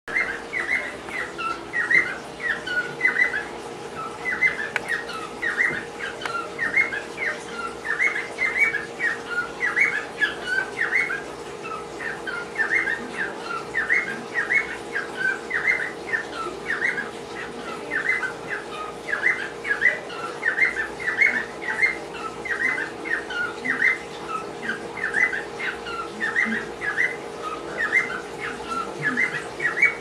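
Pet cockatiel whistling its song: a fast, steady run of short, high chirpy notes, repeated in groups over and over.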